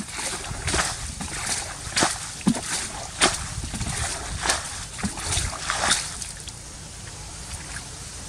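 Water splashing and sloshing in a run of short splashes, about two a second, that die away after about six seconds.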